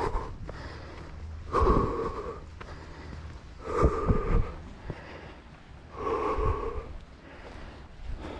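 A runner breathing hard, with a loud, breathy exhale about every two seconds, and footfalls underneath.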